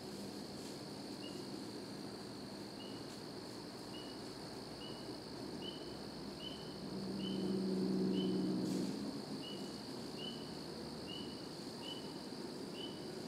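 Quiet woodland ambience: a bird's short high chirp repeats about once a second over a steady high hiss. About halfway through, a low hum swells for a couple of seconds and fades.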